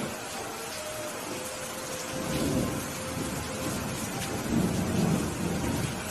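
Steady rain with thunder rumbling twice, the second roll louder, about four and a half seconds in.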